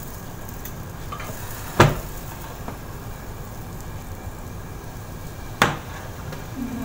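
Crepe batter sizzling in a hot frying pan as the pan is lifted and swirled to spread it. Two sharp knocks, about two seconds in and near the end, the first the louder.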